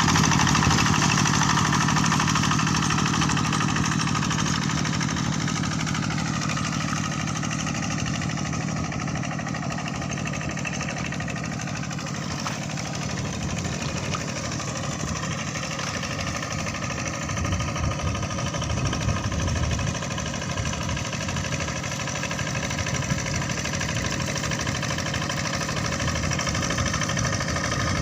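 Kubota RD85 single-cylinder diesel engine of a walk-behind hand tractor running steadily under work, growing a little quieter through the middle and louder again near the end.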